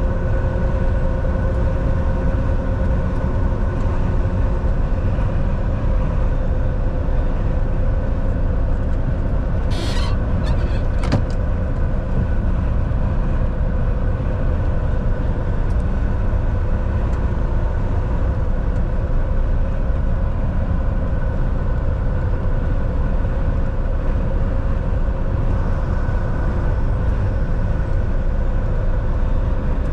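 Semi-truck driving on the road: a steady engine drone and road rumble with a few steady tones held throughout, broken by two brief sharp noises about ten and eleven seconds in.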